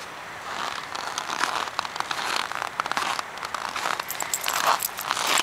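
Irregular crunching and squeaking of very cold, dry snow underfoot, at about forty below, growing louder and busier toward the end.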